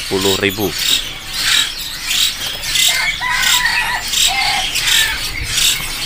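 Many caged songbirds chirping in quick, short notes, with a few brief whistled calls about three seconds in.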